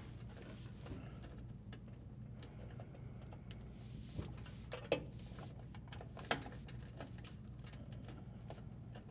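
Light clicks and rustling of electrical wires and plastic wire nuts being handled and pushed into a dishwasher's metal junction box, with two sharper clicks about five and six seconds in, over a low steady hum.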